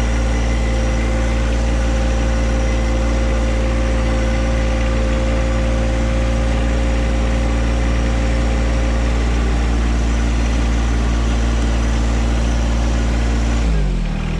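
John Deere compact tractor's engine running steadily while the tractor drives along. Near the end the engine slows and its pitch drops.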